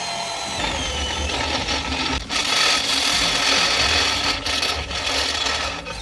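Electric drill turning a step drill bit into a steel plate, a harsh grinding, chattering noise of the bit cutting metal. It gets louder about two seconds in and eases off briefly twice.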